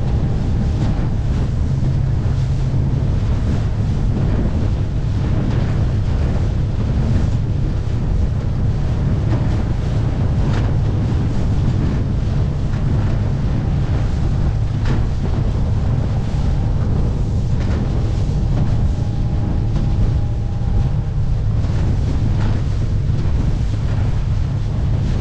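Suzuki 50 hp four-stroke outboard running steadily with the boat under way, under heavy wind buffeting on the microphone. The chop slaps against the hull a few times.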